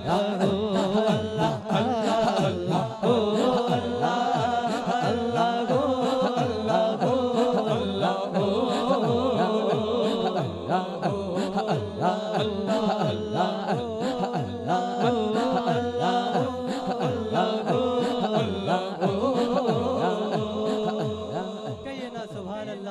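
Devotional naat music between sung verses: a wavering melodic vocal line over a held drone, with men's voices chanting in a quick, steady rhythm underneath.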